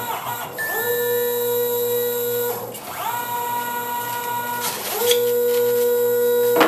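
Stepper motors of a CNC hot-wire foam cutter whining as they drive the wire through a cut: three moves at steady pitches, each starting with a quick rising glide and ending with a falling one, the pitch shifting between moves as the speed changes.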